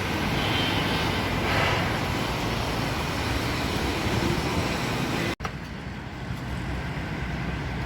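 Steady outdoor rumble of engines and traffic. About five seconds in it cuts off abruptly, then carries on duller and more muffled.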